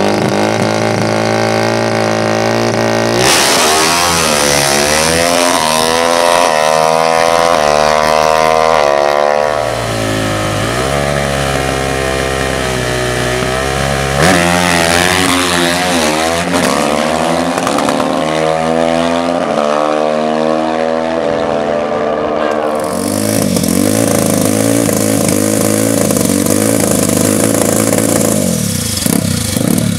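Racing ATV engines revving up and down again and again, over steady idling engines.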